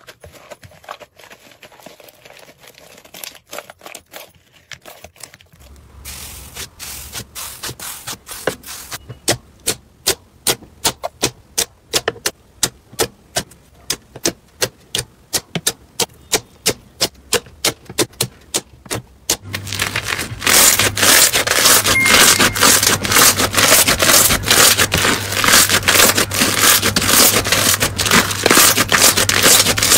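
Hands squeezing, poking and kneading slime. Soft crackling first, then a long run of sharp, evenly spaced popping clicks at about three a second, as air pockets in glossy white slime are pressed. Then, from about two-thirds of the way in, dense, loud crackling as fluffy yellow slime is kneaded.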